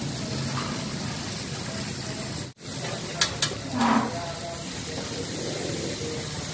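Spiced pineapple slices sizzling steadily on a hot flat griddle. The sound cuts out for a moment about halfway through, then two sharp metal clicks come from a spoon against the griddle, followed by a brief louder flare of sizzling as butter goes onto the hot surface.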